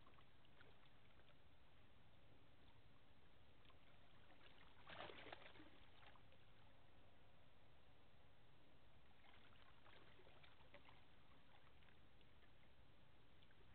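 Near silence: a faint, steady low background rumble, with a brief cluster of faint clicks about five seconds in and a few fainter ticks later.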